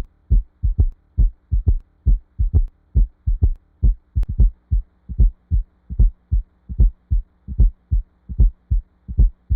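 Human heartbeat: low-pitched paired lub-dub thumps in a quick, regular rhythm, with a faint steady hum beneath.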